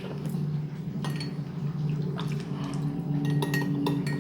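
Homemade borax slime being handled in a bowl: small sticky squishes and light clicks and clinks of kitchenware, coming more often in the second half, over a steady low hum.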